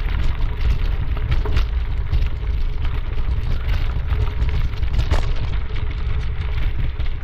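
Wind buffeting the microphone of a camera carried by a runner, a steady loud rumble, with scattered crunching footfalls on the trail.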